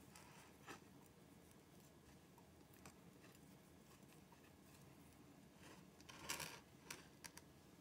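Faint rustling and patting of fingers rubbing a dry spice rub into a raw steak on a plate, with a few soft clicks and a brief louder scrape about six seconds in.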